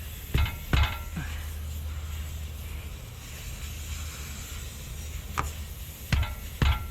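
Air hissing from a punctured tyre as a puncture-plug reamer tool is worked into the hole, with a few sharp clicks and knocks from the tool near the start and again near the end.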